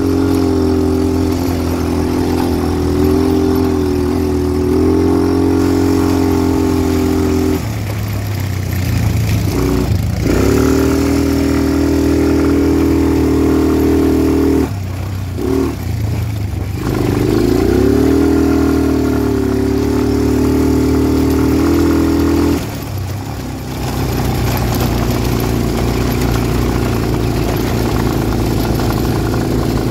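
Quad bike engine running under throttle, its note holding steady with several brief dips where the throttle eases off. For the last few seconds it settles to a lower, steadier running.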